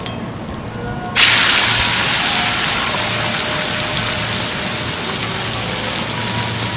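Chicken thighs laid skin-side down in a hot frying pan with olive oil start sizzling loudly about a second in, a steady hiss that eases off slowly.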